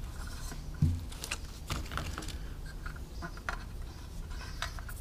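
Scattered light clicks, taps and rustles of a flexible waterproof LED strip light being handled and pressed around the inside of a metal sign letter, with a soft low thump just under a second in.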